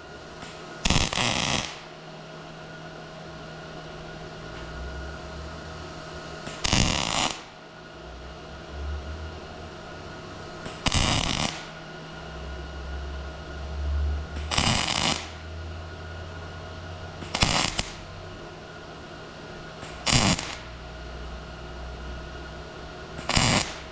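MIG welder arc crackling in seven short bursts, each a second or less, as the trigger is pulled for small practice spot welds in circles on a piece of metal. A steady low hum sits between the bursts.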